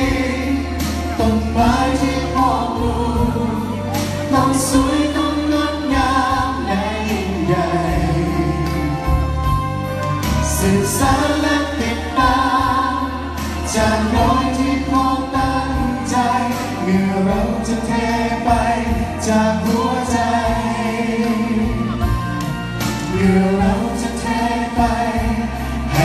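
A group of singers, men and a woman, singing a song together in harmony through handheld microphones over a PA, with a steady low bass under the voices.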